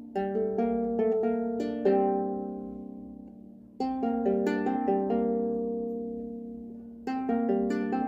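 Trossingen lyre, a six-string early medieval lyre, played solo: clusters of strings plucked in quick succession and left to ring and fade, with a new cluster about four seconds in and another near the end.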